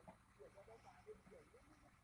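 Near silence: faint outdoor ambience with a few faint short sounds that rise and fall in pitch, and a faint low hum.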